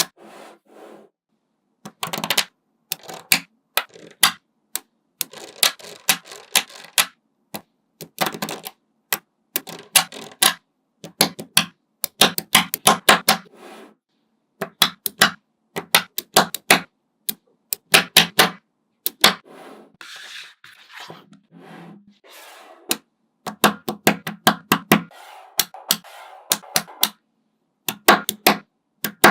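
Small magnetic balls clicking as they snap together and are pressed into place, in quick runs of sharp clicks separated by short pauses. A softer scraping stretch comes about two-thirds of the way through.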